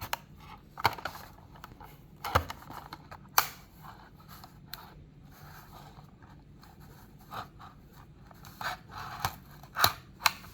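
Plastic blister and cardboard backing card of a die-cast toy car being worked open by hand: scattered scraping, crackling and tearing, with a few sharp clicks.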